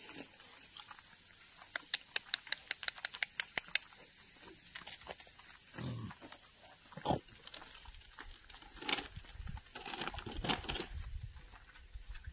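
Wild boar hooves clicking rapidly on pavement for a couple of seconds as a boar trots past. Scattered grunts and rustling follow as boars and piglets root through rubbish.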